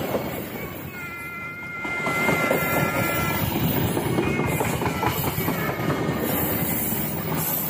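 Passenger train coaches passing close at speed: a steady loud rumble of wheels on rail. A few high, steady ringing tones come and go over the noise in the first few seconds.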